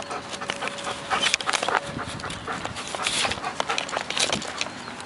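Black German Shepherd panting with a thin high whine, eager to start tracking while held back. Rustling and knocking from the handheld camera and harness run through it.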